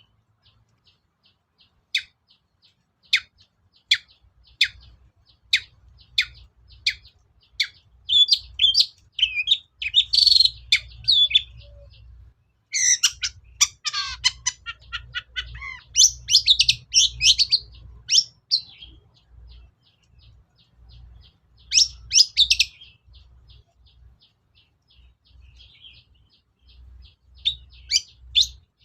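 Long-tailed shrike singing: a run of sharp single chirps about one a second, then bursts of fast, scratchy, varied high notes with quiet gaps between them, used as a lure song to rouse other shrikes to sing.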